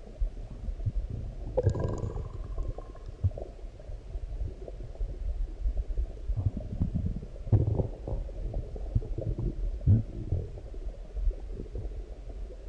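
A person's stomach growling and gurgling while digesting a large meal: a run of irregular low gurgles, with a longer growl about two seconds in and stronger gurgles around the middle and again a little later.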